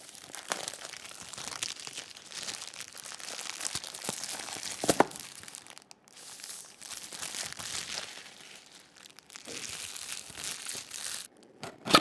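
Clear plastic shrink wrap being peeled and torn off a cardboard box and crumpled in the hand: a continuous crinkling and crackling with short pauses. A sharp crack comes about five seconds in, and another near the end.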